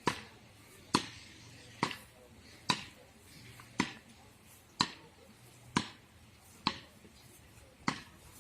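Tennis rally: a ball struck back and forth with rackets and bouncing, a crisp pop about once a second.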